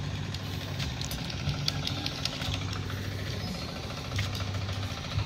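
A steady low engine or motor hum, shifting slightly in pitch, with faint scattered clicks over it.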